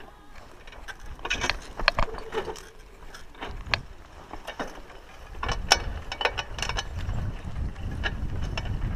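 Raleigh Ascent mountain bike rattling over a rough dirt track: irregular clicks and rattles from the chain, frame and freewheel, with a low rumble building near the end.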